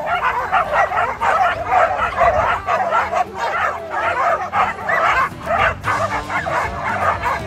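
A large pack of dogs yipping, barking and whining excitedly, many high yelps overlapping without a break. They are worked up waiting for a big ball held overhead to be thrown.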